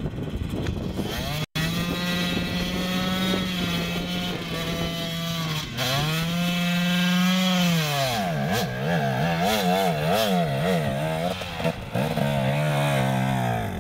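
Enduro motorcycle engine held at high revs while the rear wheel spins in bog. The note is steady at first, dips and climbs again about six seconds in, then swings rapidly up and down as the bike fights for grip.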